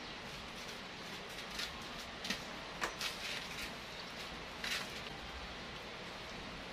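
Light handling noises, a few short knocks and scrapes, as a bare-rooted bonsai tree and a rock are moved about on a worktable. They come over a steady background hiss.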